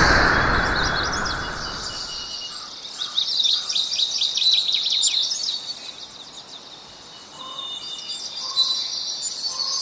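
Birds chirping: dense runs of short, high chirps in quick succession, coming in two spells. A rushing noise fades out under them over the first couple of seconds.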